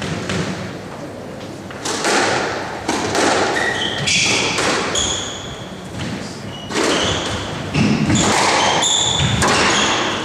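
Squash rally: the ball is struck by rackets and hits the court walls in a series of sharp thuds that echo around the court, mixed with short high squeaks of court shoes on the wooden floor.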